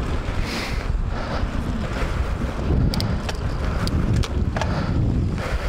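Wind rushing over the microphone of a moving bicycle rider, a steady low rumble, with a few sharp clicks around the middle.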